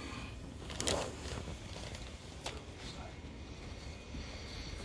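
Quiet handling sounds on a chiropractic treatment table: a soft rustle about a second in, then a single small click about halfway through.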